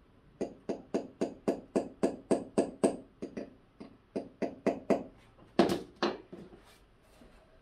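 Hammer tapping a stubborn part into flat-pack furniture: a quick, even run of about ten light blows, a few slower taps, then two harder blows about five and a half seconds in. The part keeps going in crooked, so it is being driven in by force.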